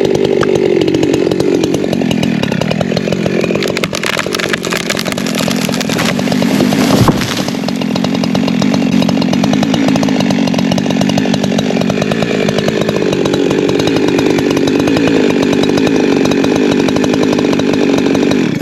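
Holzfforma G372XP Pro two-stroke chainsaw running under load through a tree-felling cut, its engine pitch wavering as the bar bites. There is a sharp crack about seven seconds in, and the saw cuts off abruptly at the end.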